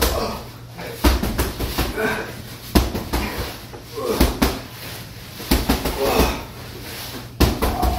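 Gloved punches landing on a hanging heavy bag: irregular dull thuds, roughly one every second.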